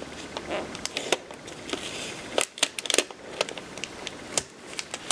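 Paper crinkling with scattered light ticks and taps as an infusible ink transfer sheet is smoothed and taped onto a cap.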